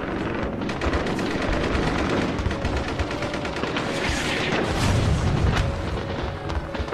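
Battle sound effects: rapid gunfire with deep booms, thickest about four to five seconds in, over background music.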